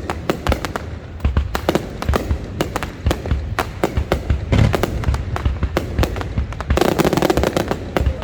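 Fireworks display: rapid, irregular bangs and crackles of shells bursting over a low rumble, with a dense flurry of crackling about seven seconds in.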